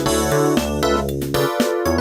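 Synthesized ringtone demo music from a Yamaha MA-series mobile phone sound chip, with a busy melody of keyboard-like notes over a steady bass line.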